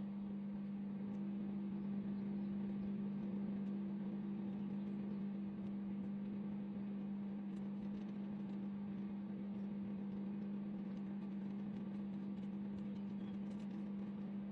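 Microwave oven running with a steady, even hum, with faint scattered ticks over it.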